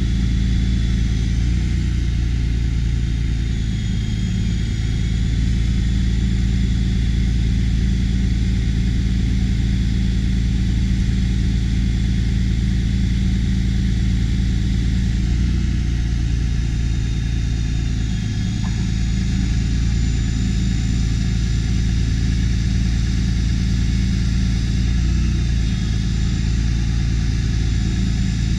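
Truck engine running steadily while it powers the Altec aerial boom, with a thin high whine over it that dips in pitch now and then as the boom moves.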